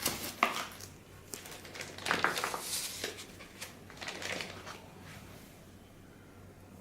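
Rustling and light clicks of packaging and a plastic-cased car stereo head unit being handled, in a few short bursts that die down near the end.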